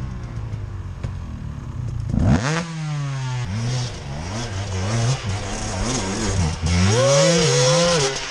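Off-road dirt bike engine revving hard on a steep climb, its revs rising and falling in repeated bursts, with one sharp jump in revs about two seconds in.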